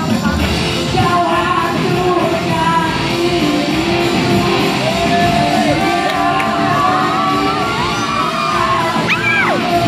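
A male singer's voice amplified through a microphone and PA speakers over backing music, with shouting mixed in. About nine seconds in, a voice swoops up high and back down.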